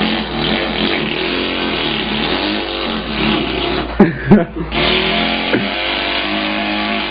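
A person imitating an engine with his mouth: a continuous buzzing drone that breaks off briefly about four seconds in, then starts again.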